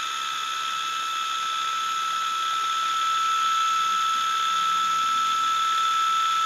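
Electric cooling-fan motor of a car radiator / A/C condenser running at a steady speed: a steady whine with an airy hiss. Its bushings are freshly lubricated with WD-40 and oil, and it runs less noisily.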